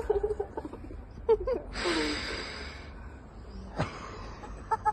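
A young woman's nervous gasps and breathy laughter, with one long breathy gasp about two seconds in, as she braces to be gunged.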